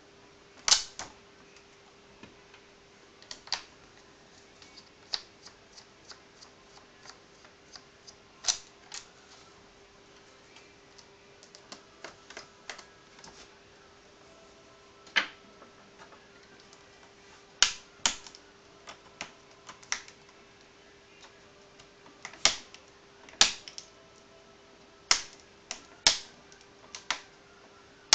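Irregular sharp plastic clicks and taps, a few of them loud, from the display bezel of an MSI CR500X laptop being worked loose by hand and with a screwdriver, its clips snapping free.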